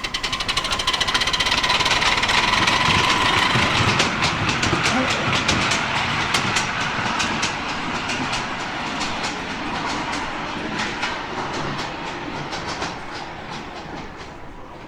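Miniature ride-on railway train running past, its wheels clicking over the rail joints. It grows louder over the first few seconds, then slowly fades as it moves away.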